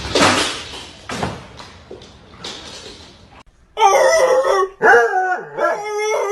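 A dog howling in a run of long, wavering calls about halfway through, after a few seconds of noisy, breathy huffs and rustling.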